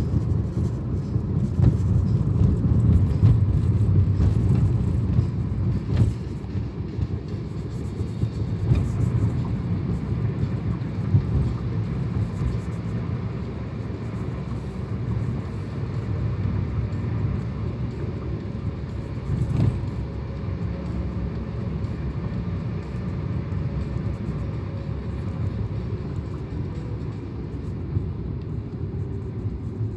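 Road noise inside a moving car's cabin: a steady low rumble of engine and tyres, a little louder in the first few seconds.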